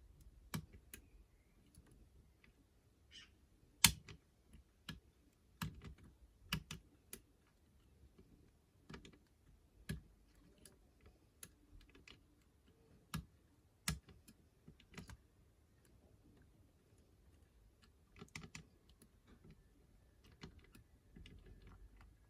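Irregular small clicks and taps of a lever-lock multi-pick working the levers of a five-lever mortice lock, with the loudest click about four seconds in and another strong one near fourteen seconds.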